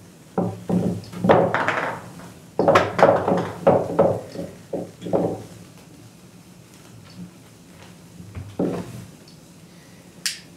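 A man muttering under his breath in broken bursts for about five seconds, then a shorter murmur, and a single sharp click near the end.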